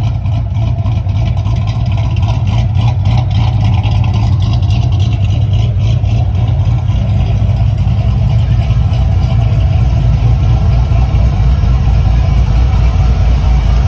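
Low, steady rumble from the exhaust of a Chevy's Blueprint crate V8 engine running, growing a little louder toward the end.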